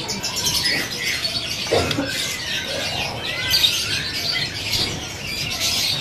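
Many caged songbirds chirping and twittering at once, a dense overlapping chorus of short high calls.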